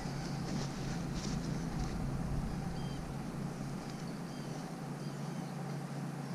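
A steady low mechanical hum with a few faint, short high chirps over it.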